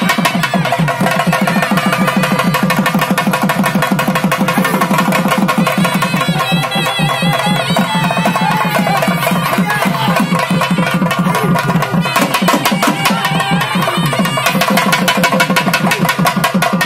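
Rapid drumming on barrel drums beaten with sticks, with a reed pipe playing a wavering melody over the beat.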